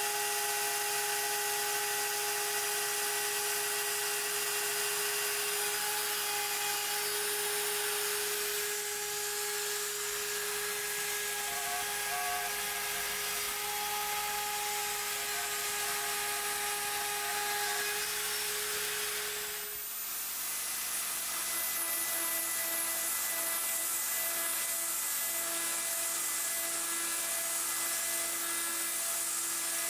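CNC router spindle milling aluminium with a carbide end mill on a Mostly Printed CNC: a steady high whine over a hiss. About two-thirds through, the sound changes to a lower, pulsing tone as the end mill plunges into the plate to cut holes.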